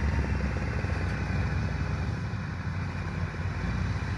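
Farm machinery engines running steadily with a low, even rumble: the vehicle hauling a trailer loaded with rice sacks, and a combine harvester working nearby.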